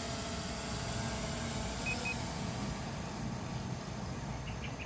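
Quadcopter drone's propellers humming as it climbs away and fades, with a short double electronic beep about two seconds in.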